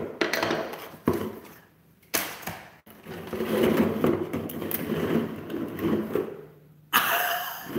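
Small plastic paint bottles knocking and clattering against each other and the tabletop as they are pushed together into a pile. Separate knocks at first, then a busy run of rattling, and a sudden louder burst near the end.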